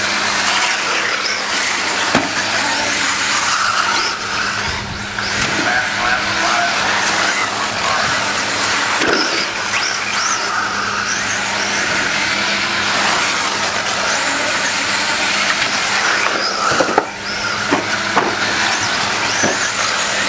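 Several 1/8-scale radio-controlled late model race cars lapping an oval, their motors whining high and steady as they circle. A few sharp knocks come through, one about two seconds in and two more near the end.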